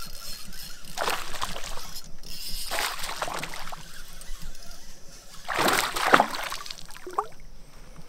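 Water splashing in several short bursts, the strongest about a second, three seconds and six seconds in: a hooked largemouth bass thrashing at the surface beside a canoe as it is brought in.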